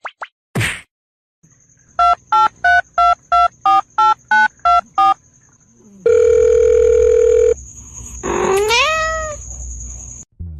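Nine short telephone keypad touch-tones in quick succession, then a steady phone tone held for about a second and a half, followed by a cat's rising meow.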